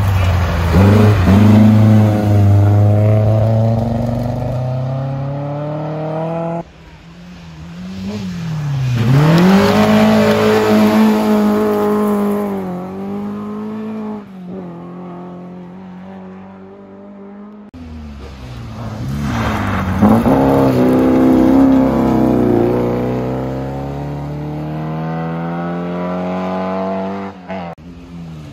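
Rally car engines at full throttle on a gravel stage, three separate passes edited together, each revving high and climbing in pitch through the gears. The first car is a Volvo 240. In the middle pass the revs dip sharply and pick up again about nine seconds in.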